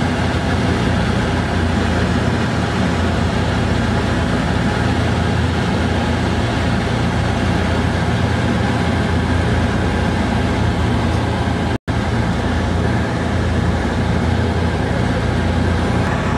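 Steady drone of a Douglas DC-3 Dakota's twin Pratt & Whitney R-1830 radial engines and slipstream, heard from inside the cabin in flight. The sound drops out for a split second about twelve seconds in.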